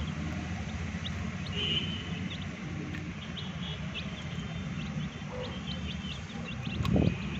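Chicks peeping in many short, high chirps while feeding, over a steady low rumble, with one thump about seven seconds in.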